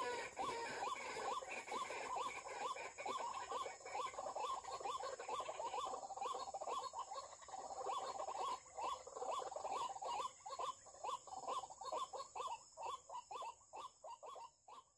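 White-breasted waterhen (ruak-ruak) calling: a fast run of repeated croaking notes that spread out to about three a second and fade away near the end.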